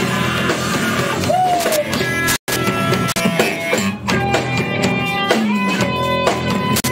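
Live rock band playing, with electric guitar over a drum kit. The recording cuts out for an instant about two and a half seconds in.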